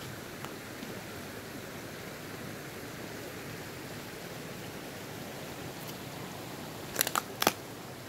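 Steady hiss of water running beneath and through a frozen waterfall. Three or four sharp clicks come in quick succession about seven seconds in, louder than the water.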